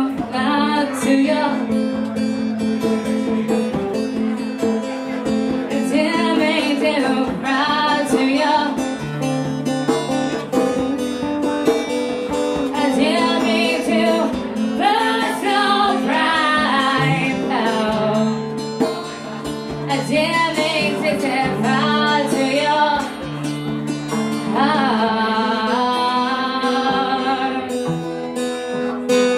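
Live acoustic music: a woman singing over acoustic guitar accompaniment.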